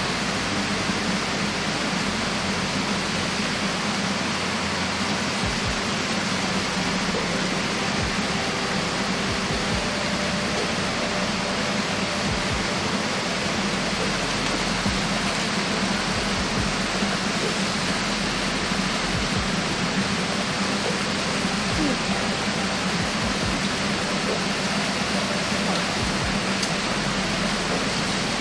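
Steady, unbroken rushing of water, even in level throughout.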